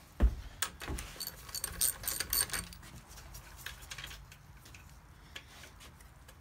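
Small metal parts clinking and rattling as the 17 mm nuts and washers are taken off a VW Beetle engine case by hand: a knock about a quarter second in, a run of bright ringing clinks over the next two seconds, then quieter handling.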